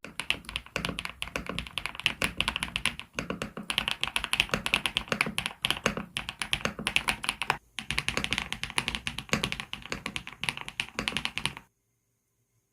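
Fast typing on an SPM PL87W mechanical keyboard, whose keystrokes are meant to sound like clacking pebbles. There is a short pause about three-quarters of the way through, and the typing stops about a second before the end.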